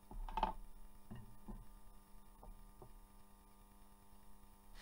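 Steady low electrical hum. A short noise comes about half a second in, the loudest moment, followed by a few faint ticks over the next couple of seconds.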